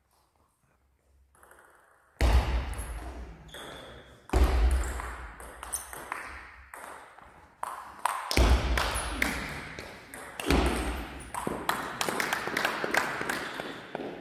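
Table tennis rally: a celluloid ball clicking off bats and the table, with several heavy thuds that echo through a large sports hall.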